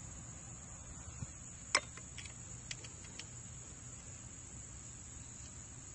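A steady high insect chirring, with a few light metallic clicks of a screwdriver and screw on the pump's housing; the sharpest comes a little under two seconds in.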